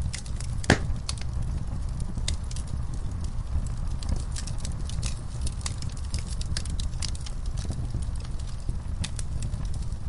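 Wood fire crackling and popping in irregular snaps over a low, steady rumble of burning, with one loud pop just under a second in.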